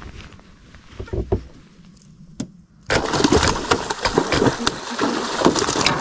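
A hooked tarpon thrashing at the surface beside a small skiff: a loud burst of splashing and water slapping starts about three seconds in and keeps on. Before it there are only a few low knocks.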